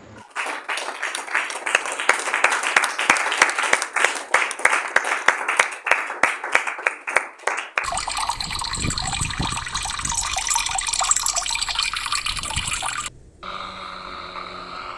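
A fast, dense patter of small clicks for about eight seconds, then water pouring or running for about five seconds, which cuts off suddenly. A steady hum with several held tones follows near the end.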